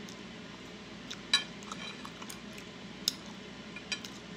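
Close-miked chewing of octopus, with a few sharp clicks standing out, the loudest about a second and a half in. Chopsticks click against the ceramic plate near the end.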